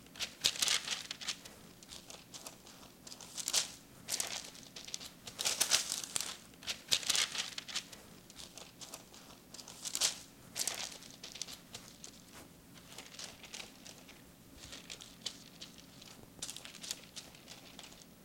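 Parchment paper crinkling and rustling as a log of cookie dough is rolled back and forth on it by gloved hands, in irregular swishes that grow fainter in the second half.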